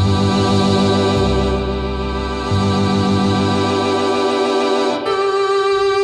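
Organ playing held chords over a moving bass line, the bass notes changing every second or so. The low notes then drop away, and about five seconds in the chord changes to a thinner, higher one.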